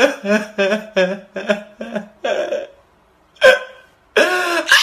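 A man sobbing loudly in short, rhythmic, wailing gasps, about three a second, then a brief pause, one sharp cry, and a longer wail near the end.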